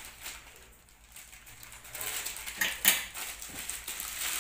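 Plastic mailer pouch crinkling and rustling as it is handled and pulled open, with sharp crackles from about two seconds in.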